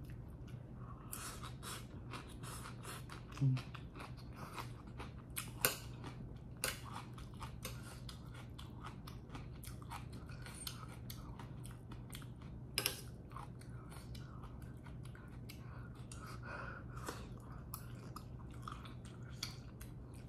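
Close-miked chewing and mouth sounds of someone eating tteokbokki with soybean sprouts: many small wet smacks and crunches, over a steady low hum. A brief low hum-like tone sounds about three and a half seconds in.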